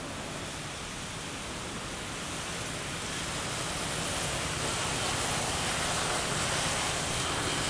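Steady rushing background noise, growing a little louder after about three seconds, with a faint high steady tone near the end.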